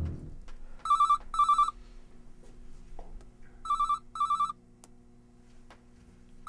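Cell phone ringing with an electronic double-ring tone: two short trilling bursts per ring, the ring repeating about every three seconds, twice, with a third just starting at the end.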